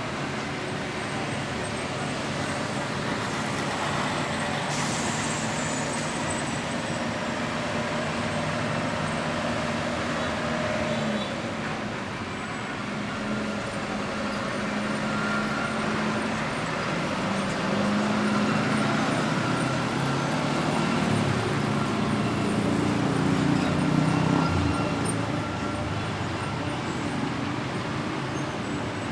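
Road traffic with buses and other heavy vehicles, their engines running, growing somewhat louder from about eighteen to twenty-five seconds in.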